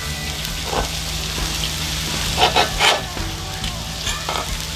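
Hamburger steak patties frying in butter and beef fat in a cast iron pot, a steady sizzle. A metal spatula scrapes and knocks against the pot a few times while turning a patty, loudest about two and a half to three seconds in.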